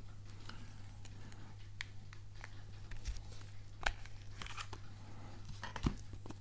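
A smartphone and a hard plastic armor case handled in the hands: faint scattered plastic clicks and rustles, with a couple of sharper knocks about four and six seconds in.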